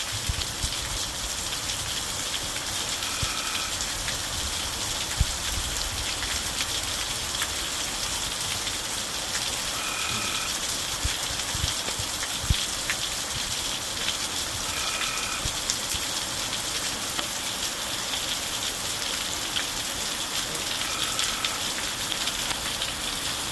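Steady heavy rain of a thundershower pouring down, with a few sharp drip knocks. A faint short high note recurs four times, several seconds apart.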